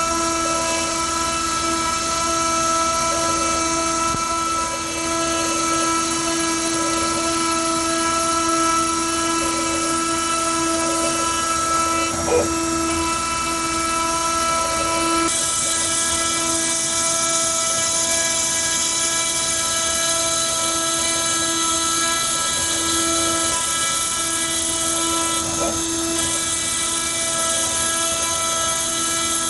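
Small spindle motor of a DIY gantry CNC machine running with a steady whine while milling a circuit board. A brighter hiss joins about halfway through, with a single click shortly before.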